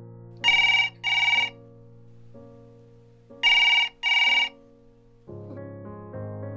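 Landline telephone ringing: two double rings, about three seconds apart, over soft background music with long held notes.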